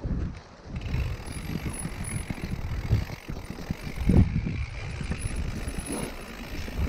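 Mountain bike rolling down a rough dirt and grass trail: tyres running over the ground and the bike rattling over bumps, with the rear hub's freewheel ticking while coasting. Two harder jolts stand out, about four and six seconds in.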